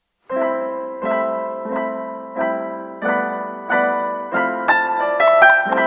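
Background music on electric piano: soft chords struck about every two-thirds of a second, each fading away, with a brighter run of quicker notes near the end.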